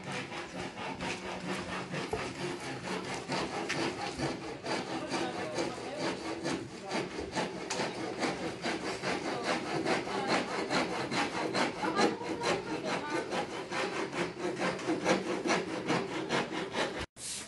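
Wood being sawn by hand: a fast, steady run of saw strokes through lumber, breaking off abruptly near the end.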